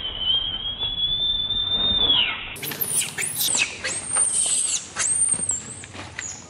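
Baby long-tailed macaque crying: one long, high, steady scream that falls off after about two seconds, then a run of shorter, higher squealing cries.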